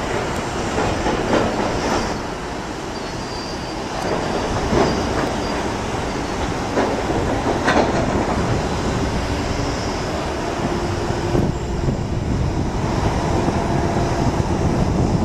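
Distant Boeing 737-800 CFM56 jet engines on approach and touchdown: a steady rushing noise with faint steady tones that come in during the last few seconds, broken by several sharp knocks in the first half.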